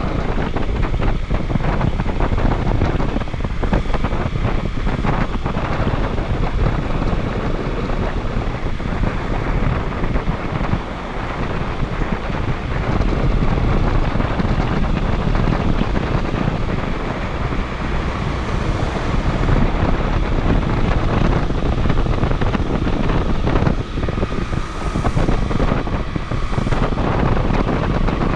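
Wind rushing hard over the camera microphone on a moving motorcycle, with a Honda CD125T's parallel-twin four-stroke engine running beneath it. Loud and continuous, easing slightly about eleven seconds in.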